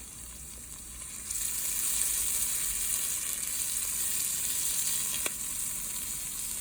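Chopped onions sizzling as they sauté in hot olive oil in a pot, a steady hiss that gets louder a little over a second in. A single light knock sounds about five seconds in.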